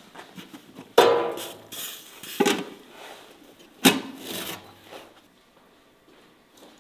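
Large aluminium pot and its metal lid clanking as they are handled, three sharp metallic knocks with a short ring about a second and a half apart.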